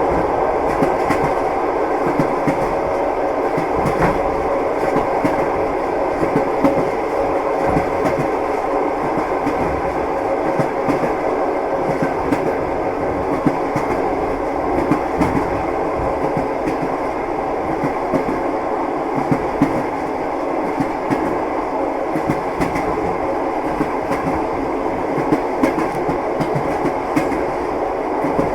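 Train wheels clattering on the rails: a steady rolling rumble with frequent short knocks and clicks from the wheels.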